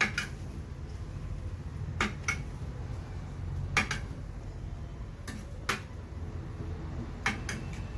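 A metal spoon clinking and scraping against a brass pot as chicken pieces are stirred. Sharp clinks, often in pairs, come every second or two over a low steady hum.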